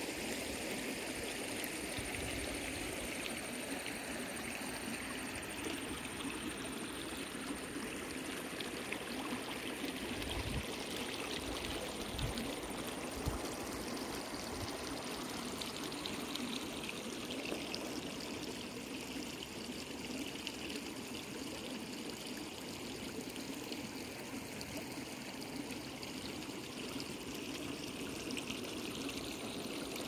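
Water running and trickling over rocks in a shallow stream, a steady even rush.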